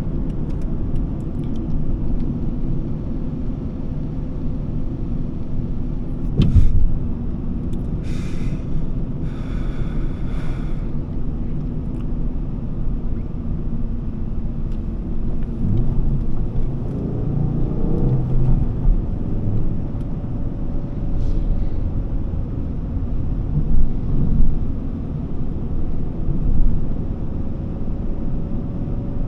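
Volvo S40 with its 2.4-litre five-cylinder petrol engine driving, a steady low rumble of engine and road noise, with a short thump about six seconds in.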